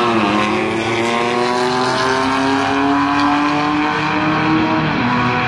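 C6 Corvette Grand Sport's cammed LS3 V8, with headers and Borla exhaust, pulling hard at full throttle down a drag strip. The pitch climbs steadily through a gear, then drops at an upshift about five seconds in.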